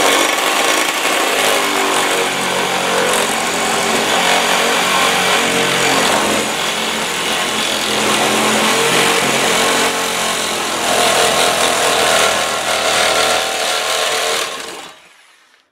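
Reciprocating saw cutting through a flat steel bar clamped in a vise: a loud, continuous sawing run that stops shortly before the end.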